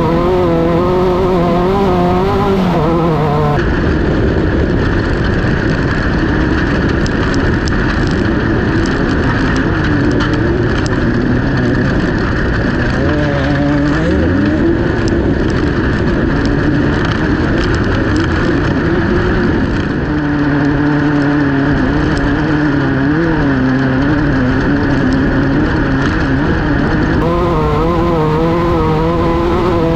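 Class 1600 off-road race car's air-cooled VW flat-four engine running hard, its revs rising and falling again and again, with rattles and knocks from the car over rough ground. The sound changes abruptly in character about four seconds in and changes back near the end.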